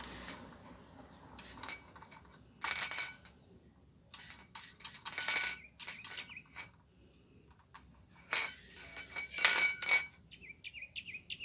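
Aerosol spray paint can in a pistol-grip trigger handle being handled and shaken, its mixing ball clinking in a series of short, irregular bursts, with a longer burst near the end.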